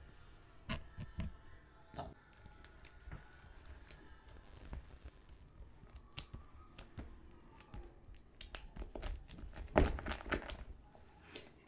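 The wrapping on an Apple AirPods 2 box being slit and torn open by hand close to the microphone: scattered small clicks and crinkles, then a longer, louder run of tearing near the end.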